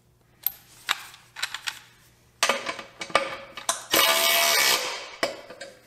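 Milwaukee M12 2457 cordless 3/8-inch ratchet running in two short bursts, the first about two and a half seconds in and the second, the louder, about four seconds in, each lasting under a second. A few light metal clicks come before them as the socket is fitted onto the axle nut.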